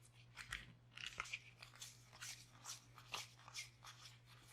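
Faint, irregular soft snaps and rustles of trading cards being flipped one by one through a deck.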